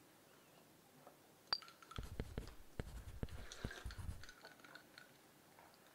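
A quick run of light clicks and soft knocks of a bagel half being handled on a ceramic plate, starting with one sharp click and dying away after a couple of seconds.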